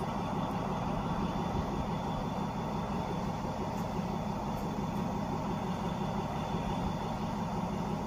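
Diesel passenger train idling steadily while it stands held at the station, waiting for its departure time.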